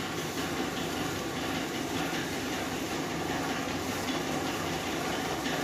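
Milky vermicelli pudding simmering in a pan on the stove, a steady hissing rush, with a slotted spatula stirring and scraping through it.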